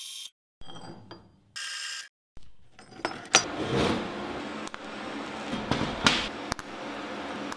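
Metal-cutting bandsaw running through steel flat bar in two short snatches, then steel plates being knocked and shifted into place on a steel welding table, with scattered sharp clanks over a scraping, rattling background.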